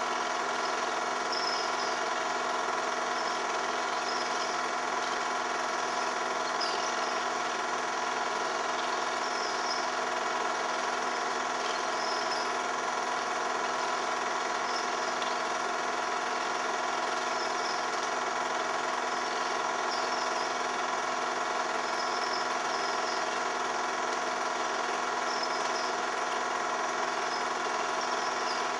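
Cine film projector running: a steady mechanical whirr whose pitch and level hold constant throughout.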